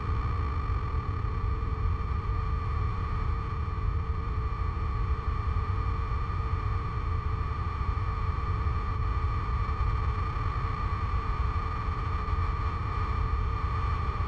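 Steady sound-design drone: a deep rumble with two held tones above it and a noise haze, unchanging throughout.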